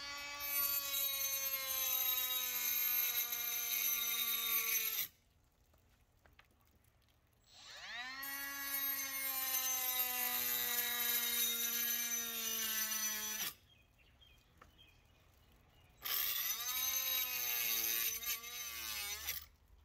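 Milwaukee M12 Fuel compact cut-off tool cutting into a pine board in three runs of a few seconds each. Its whine sinks slowly in pitch as the blade bites, wavers during the last cut, and each run stops sharply.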